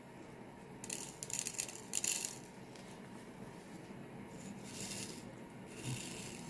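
Small bags of resin diamond-painting drills being opened and handled, the drills clicking and rattling together with a crinkle of plastic in three short spells.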